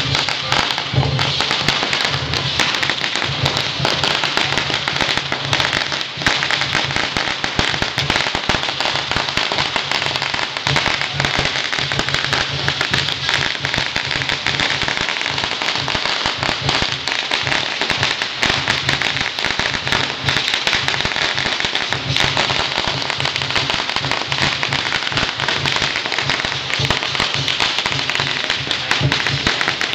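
A long string of Chinese firecrackers going off in a continuous rapid crackle of bangs, with a low pulsing beat underneath.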